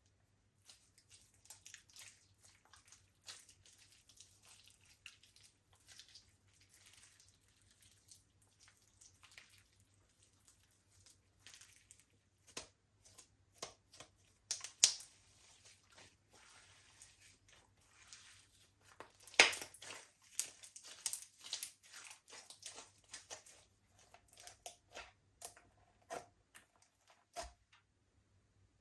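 Slime being worked by hand, a run of sticky clicks, crackles and squelches, loudest around the middle.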